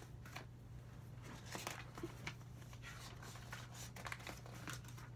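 Scissors snipping through two sheets of paper held together, with paper rustling as it is turned: faint, irregular snips and rustles over a steady low hum.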